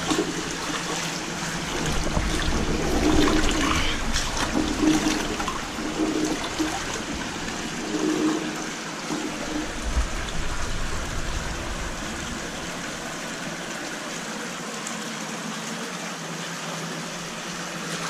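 Shallow creek water splashing and churning as debris is dragged out of it, with a few knocks in the first ten seconds, then settling to a steady run of flowing water.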